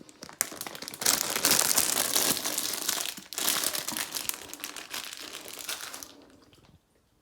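A packet of onions crinkling and rustling as it is handled to shake onions out. It comes in two spells with a short break about three seconds in, then fades out near the end.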